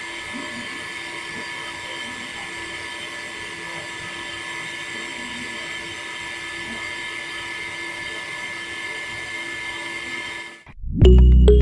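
Small battery-powered DC water pump running with a steady whine as it pushes water through its hose. It cuts off suddenly near the end, and loud music starts.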